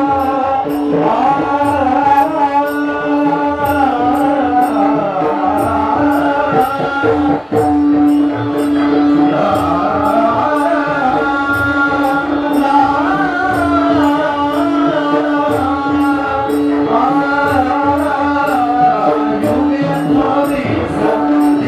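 Live devotional-style Indian music: a melody sung over a steady drone note, with drum strokes and small cymbals keeping a regular beat of about two strokes a second.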